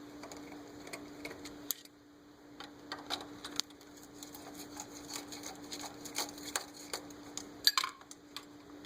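Screws being backed out of a metal door strike plate and the plate handled: a run of small, irregular metallic clicks and ticks, with a louder cluster of clicks near the end.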